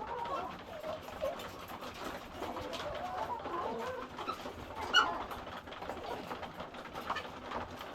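A flock of hungry layer hens clucking and calling, many short wavering calls overlapping. A sharp click sounds about five seconds in.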